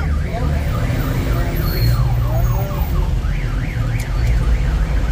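An electronic siren warbling quickly up and down, about four sweeps a second, in two spells: at the start and again past the middle. Under it runs the steady low rumble of street traffic.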